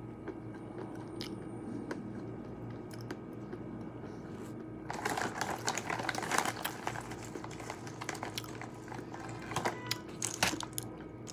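Pistachios being cracked open by hand and eaten: a dense spell of shell crackling and crunching about five seconds in, lasting a couple of seconds, then a few scattered clicks near the end.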